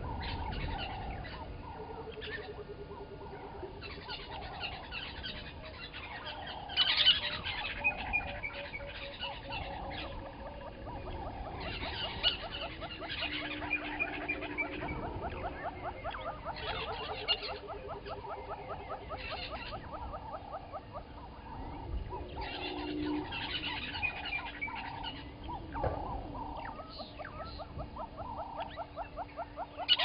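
Many wild birds calling and singing over one another, with quick runs of repeated notes, trills and whistled phrases; one call stands out louder about seven seconds in.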